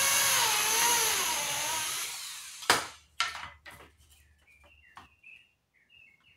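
Handheld electric drill boring through thin plywood, its motor pitch wavering under load for the first two and a half seconds before it stops. A sharp knock follows, then a few lighter knocks as the board is handled.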